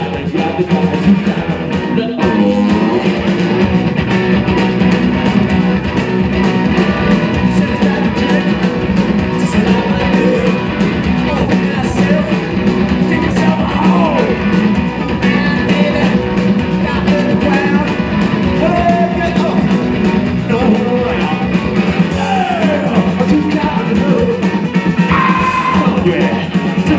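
Live blues-punk rock band playing loud and without a break: electric guitars and drums, with a man singing over them.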